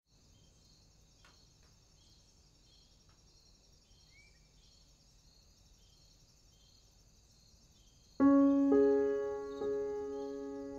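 Faint nature ambience of insects chirping in a steady pulse, with one short rising chirp about four seconds in. About eight seconds in, slow piano music starts with a loud ringing chord and becomes the loudest sound, its notes fading away between strikes.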